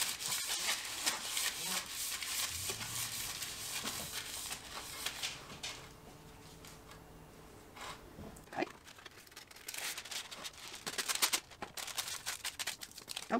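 Wax paper rustling and crinkling as it is handled and pressed into a metal baking pan, with a quieter lull partway through before more crinkling and light taps.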